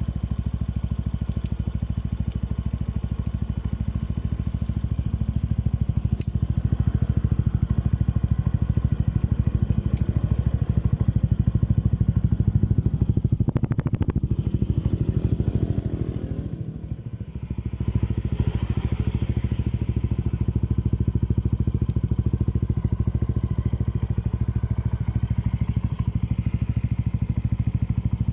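Motorcycle engine running through a JVT Power Pipe V3 adjustable aftermarket exhaust, a steady exhaust note. The level dips briefly about two-thirds of the way through, then picks up again.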